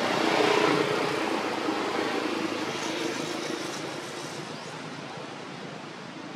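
A motor vehicle's engine and road noise, fading steadily away.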